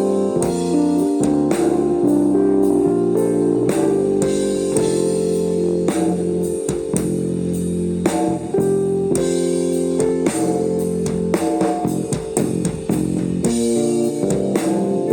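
Live rock band playing an instrumental passage: guitar and bass guitar over a drum kit.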